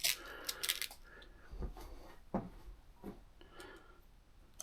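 A few quiet sharp clicks in the first second, then faint scattered knocks and rustles of handling.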